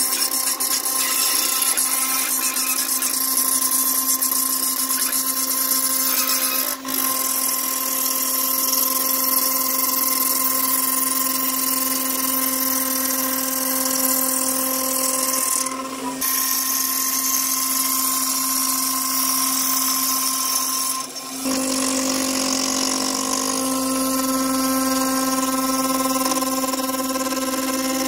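CNC router spindle running with a steady whine, its 1/4-inch solid carbide upcut O-flute end mill cutting a groove through a 3form Chroma resin panel, with a hiss from the cut. The sound dips briefly three times.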